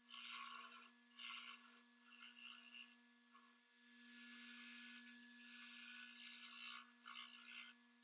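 Abrasive rubbing on cherry wood in repeated strokes, as in sanding or rasping. There are about four short strokes of under a second each and one longer stroke of about three seconds in the middle, over a steady hum.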